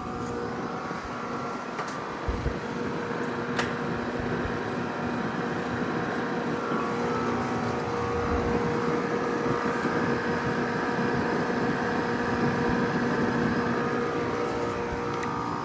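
Two 1.5-ton Trane heat pump outdoor units running, one just started: a steady hum from the Alliance scroll compressors with fan whoosh, rising gradually in loudness as the newly started unit comes up to speed. A few light clicks near the start.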